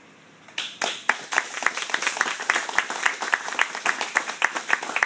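Small group applauding, starting about half a second in, with one nearby pair of hands clapping loudly and evenly at about three to four claps a second above the rest.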